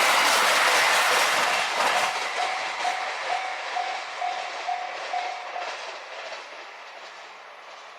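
A train passing over a level crossing and pulling away, its wheels clattering as the noise fades. The crossing's warning bell rings about twice a second as the train noise drops, then stops about six seconds in.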